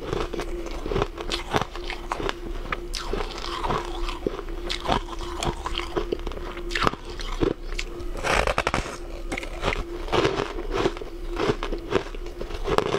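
Close-up crunching and chewing of frosty, purple-tinted ice chunks: a dense run of irregular crisp cracks and crackles, with a faint steady hum underneath.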